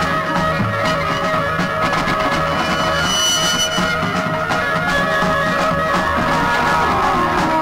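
Rock band playing live in a loose psychedelic jam: a drum kit struck steadily with cymbals and drums under long held electric guitar notes and a moving bass line.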